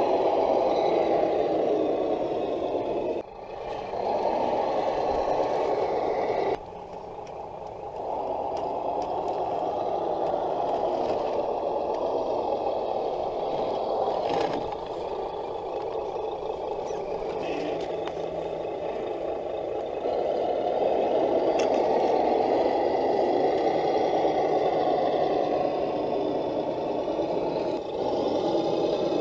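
Electric motors and geared drivetrains of scale RC crawler trucks (Traxxas and RC4WD Land Rover Defender 110s) running, a steady grinding whine. It drops away abruptly and comes back several times.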